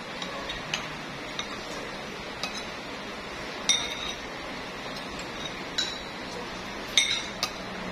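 Metal spoon and fork clinking and scraping against a ceramic plate while eating, with a few light clinks and two sharper ringing ones about halfway through and near the end, over a steady background hum.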